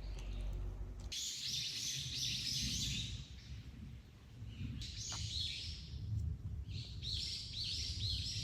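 A small bird singing in runs of quick repeated high chirps, about three to four a second, with a pause of a few seconds between runs.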